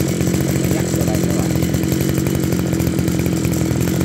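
Zenoah Komatsu CZE261H brush cutter's 26 cc two-stroke engine running at a steady idle.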